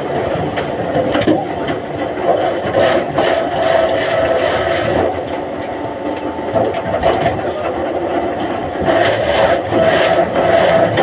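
Heavy machinery engine running steadily, with repeated scraping and knocking as logs are moved for the debarking machine.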